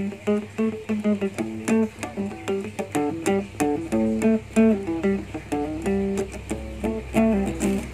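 Background music: a plucked guitar playing a steady run of short notes.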